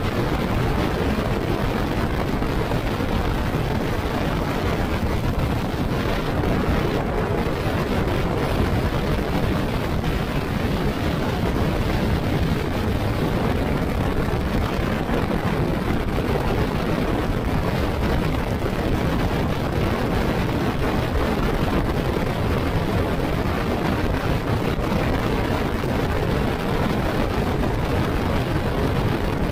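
A motorcycle being ridden at a steady pace: constant engine, road and wind noise with no change in speed.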